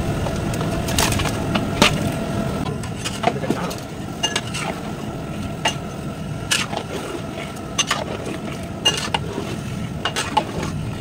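Raw chicken pieces being put into a large cooking pot of masala, with a run of irregular knocks and clatters of pot and utensils. A steady hum runs underneath.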